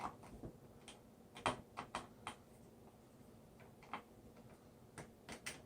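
Light, irregular clicks and ticks of a small hand screwdriver turning tiny screws down into a plastic speaker panel, about a dozen scattered taps with a slightly louder one about a second and a half in.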